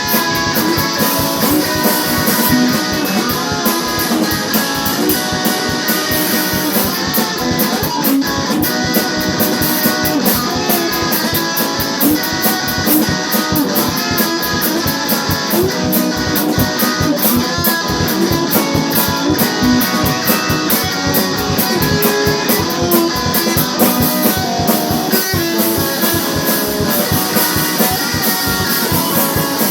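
Guitar-driven rock music from a band's demo recording: electric guitars with bass, over a fast, steady beat.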